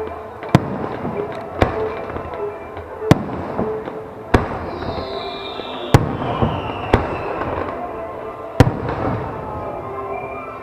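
Aerial fireworks shells bursting over the sea: about seven sharp, loud booms roughly one to one and a half seconds apart, each trailing off in a rumbling echo.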